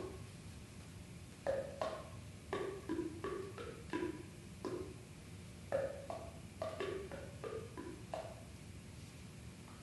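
A detached clarinet section played percussively: a series of short, hollow, pitched pops in irregular clusters, stopping shortly before the end.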